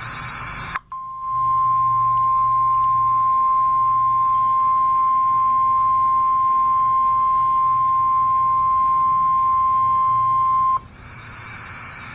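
NOAA Weather Radio 1050 Hz warning alarm tone: one steady high tone held for about ten seconds and then cut off, the signal that alerts receivers before a watch or warning message. Radio static hisses just before and after it.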